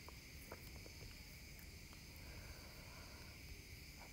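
Near silence: faint steady hiss of the recording's room tone, with a couple of faint clicks in the first second.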